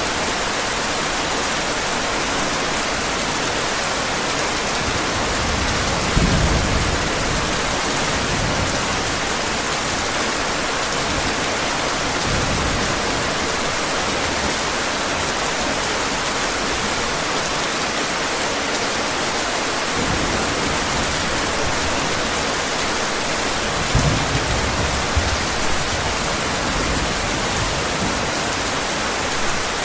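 Steady heavy rain, with two low rumbles of distant thunder, one about six seconds in and a longer one around twenty-four seconds.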